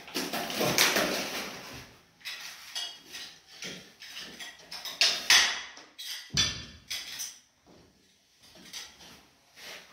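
Irregular clinks, taps and short scrapes of ceramic wall tiles being pressed and adjusted by hand into tile adhesive, tile knocking against tile and against a small hand tool.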